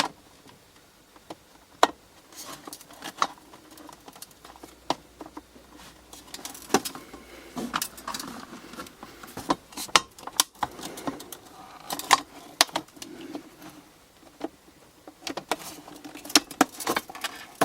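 Irregular sharp clicks, taps and knocks of plastic washing machine door parts being handled and pressed together while the door handle mechanism is worked into place.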